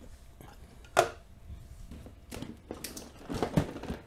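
Large cardboard set box being handled and turned over on a desk: a sharp knock about a second in, then a cluster of bumps and rubs near the end.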